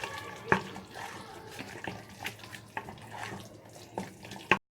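Whisk stirring butter into thick lemon curd in a saucepan: a wet, sloshing stir broken by a few sharp clicks of the whisk against the pan.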